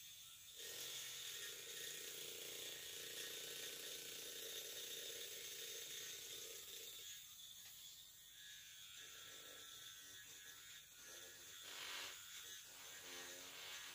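Faint buzzing of a small vibrating egg held against a freshly poured silicone mould, shaking air bubbles loose from the mould's surface. The buzz is steady at first, then turns uneven and broken about halfway through.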